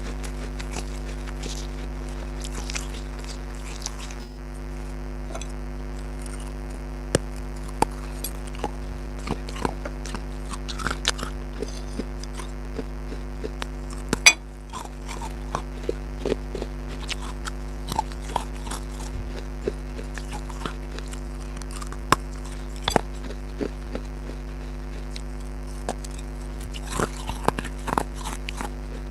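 Crunchy food being bitten and chewed: irregular short crunches and crackles, over a steady electrical hum.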